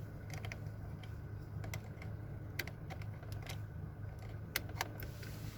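Scattered small plastic clicks and taps from a USB flash drive being plugged into a car stereo head unit, over a faint steady low hum.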